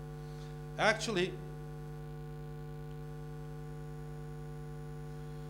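Steady electrical mains hum, a low constant tone with a ladder of overtones. A brief vocal sound from the presenter about a second in.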